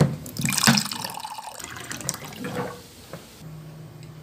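Water pouring into a ceramic mug, with a few small clinks, tailing off after about two and a half seconds. A low steady hum comes in near the end.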